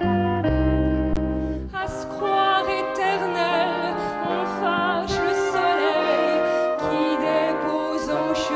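A live band with horns holds a phrase, then a woman's voice comes in about two seconds in, singing with vibrato over the band's accompaniment.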